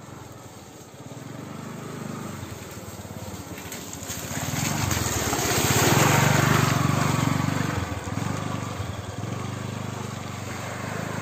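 TVS Wego scooter's small single-cylinder engine running as it rides through thick mud: it comes closer, passes close by about six seconds in, then fades as it moves away.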